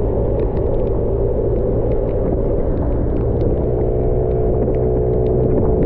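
Aprilia SXR50 50 cc scooter engine running steadily while riding, over a low road rumble; its tone steadies and grows clearer about halfway through.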